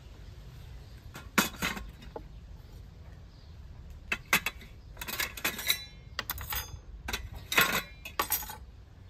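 Metal serving plates and spoons clinking and knocking as they are handled and set down, in several short clusters of clinks.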